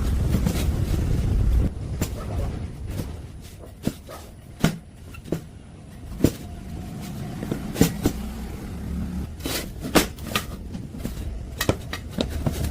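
Irregular sharp knocks and taps, a dozen or so scattered through, over a low rumble that drops away about two seconds in.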